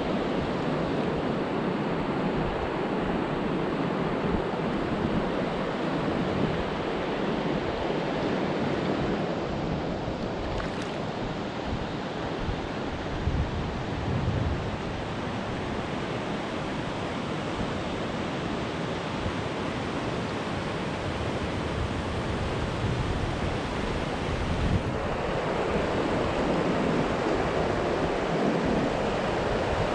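Steady rush of river water from the riffle ahead and water moving around the pontoon boat's inflatable tubes. The rush fills out and grows a little louder near the end as the boat drifts into the whitewater.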